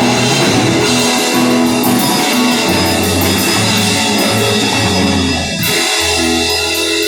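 Rock band playing live: electric guitar, bass and drum kit. About six seconds in there is a short break, then a chord is held with cymbal hits.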